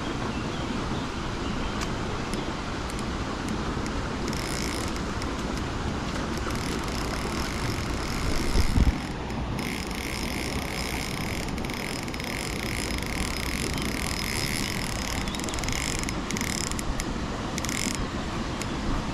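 Steady low outdoor rumble, with one loud bump about nine seconds in. A high buzzing comes on briefly about four seconds in, then returns for most of the second half, cutting in and out.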